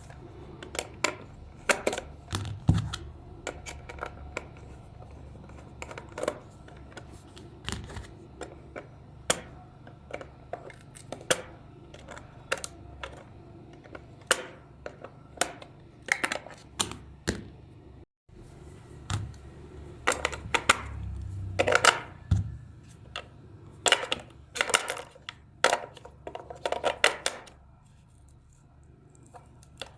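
A run of irregular sharp clicks and taps, some coming in quick clusters, over a low steady hum.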